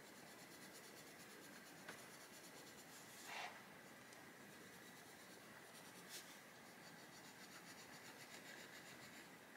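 Faint scratching of a coloured pencil shading on paper in light, steady strokes, with one brief louder rustle about three seconds in.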